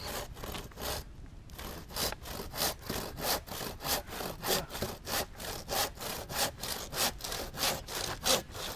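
Hand saw cutting through a piece of firewood, with a few slow strokes at first and then quick, steady back-and-forth strokes from about two seconds in.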